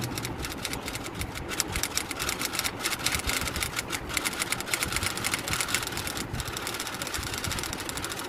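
Paintbrush scrubbing white paint onto an unglazed terracotta pot: rapid, irregular scratchy strokes of the bristles on the rough clay.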